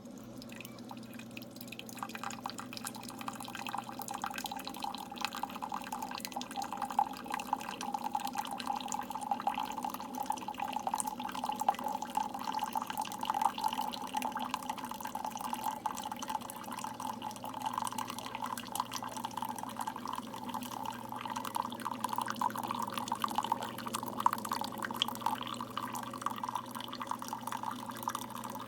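Keurig single-serve coffee maker brewing: coffee streams and drips into a cup over a steady low hum from the machine.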